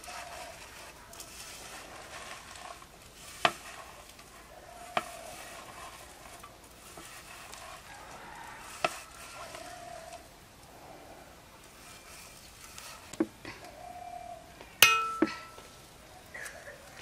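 Kitchen clatter of crockery and cookware: several sharp clinks and knocks over a faint steady hiss. The loudest clink comes about fifteen seconds in and rings briefly.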